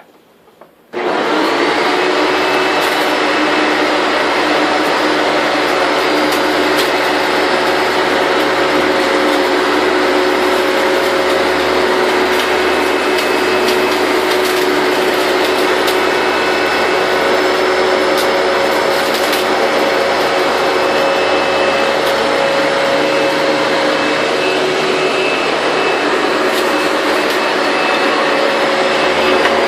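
Hoover bagless upright vacuum switched on about a second in and then running steadily, its motor and brush roll making a loud, even whir with a few held tones, as it makes a pass over dusty carpet on the low-carpet setting.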